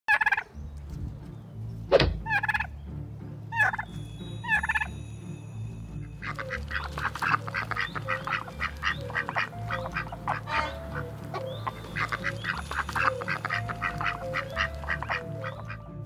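Turkeys gobbling in a few separate loud calls, then, about six seconds in, mallard ducks quacking in a long run of rapid calls packed close together.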